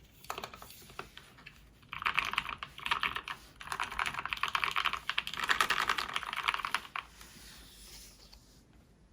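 Mechanical keyboard with lubricated SP-Star Purple switches in an acrylic 60% case, keys struck in fast, dense flurries. A few scattered clicks come first; the clatter thickens about two seconds in and dies away near the end.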